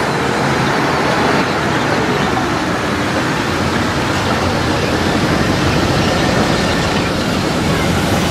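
Mercedes-Benz SLS AMG's V8 engine running steadily as the car drives past in city traffic, mixed with the sound of a passing tram and other traffic; no sharp revving.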